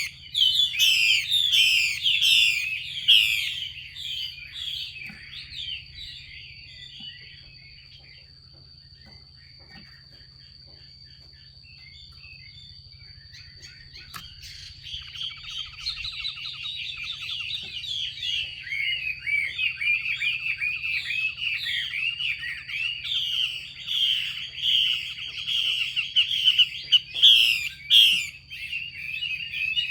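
Female Chinese hwamei (melodious laughingthrush) giving fast chattering 'xùy' calls, the call keepers play to rouse male hwamei into song. The calling dies away for several seconds in the middle and then builds back up.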